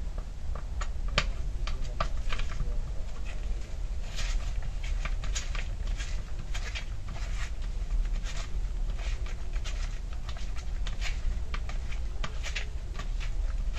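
Irregular small clicks and taps of a metal hex key turning out screws and knocking against a chainsaw's plastic cover housing, over a steady low hum.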